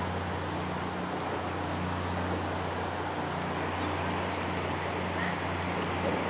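Steady low engine hum over a constant background of outdoor noise.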